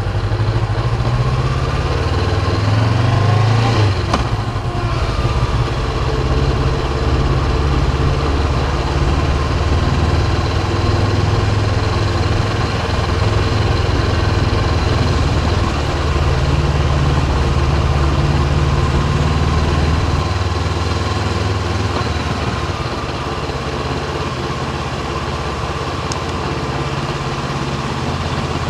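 Honda CB500X's parallel-twin engine running, its pitch rising and falling a few seconds in and again later as the revs change.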